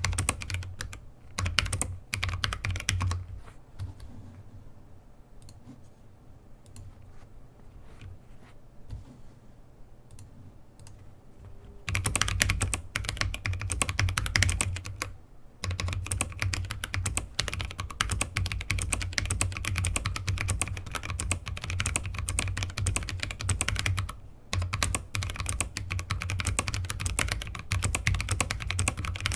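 Typing on a YMD84 mechanical keyboard with tactile Kailh Speed Copper switches, rapid key clicks. A single clicky Kailh Box Jade switch under the spacebar gives a loud click at the end of each word. The typing stops for several seconds a few seconds in and picks up again about twelve seconds in.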